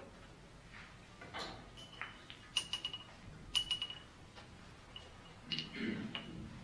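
Billiard balls clicking against each other on a keglebillard table: a soft knock, then two quick clusters of sharp clicks that ring briefly, and a few lighter clicks near the end.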